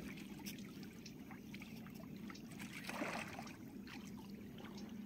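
Faint river ambience: a low steady hum with light water sounds and a soft swell of noise about three seconds in.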